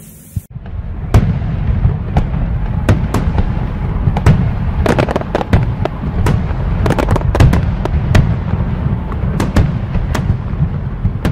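Fireworks display: a dense low rumble of bursting shells with many sharp bangs and cracks, starting about half a second in.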